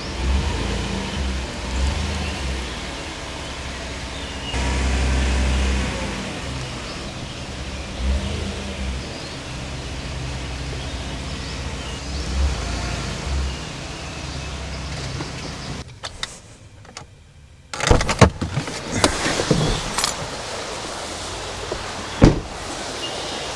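Truck running with a steady low engine and road rumble, heard from inside the cab. The rumble drops away about two-thirds of the way through, followed by a series of clunks and rattles and one sharp knock near the end.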